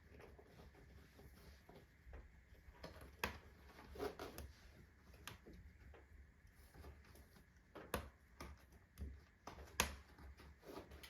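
Wood-burning fireplace stove with a freshly kindled fire: irregular sharp clicks and cracks, a few at a time, from the crackling fire and the stove's iron ticking as it heats and expands.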